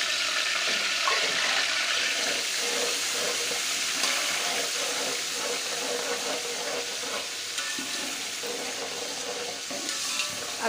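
Hot oil sizzling steadily in a metal cooking pot as whole spices fry in it with browned onions, stirred with a metal spoon.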